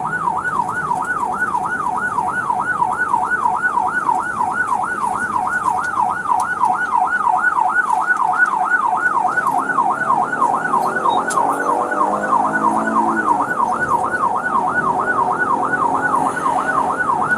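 Police car siren in the fast yelp setting, rising and falling about three times a second, steady and loud throughout.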